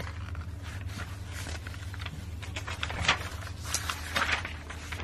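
Large paper pages of a hand-made book rustling and crackling as a page is lifted and turned, mostly after about three seconds in, over a steady low hum.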